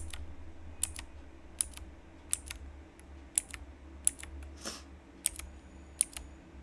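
Mechanical keyboard keys pressed softly one at a time, each giving a sharp tick. There are about nine presses, roughly one every three-quarters of a second, and many come as a quick double click.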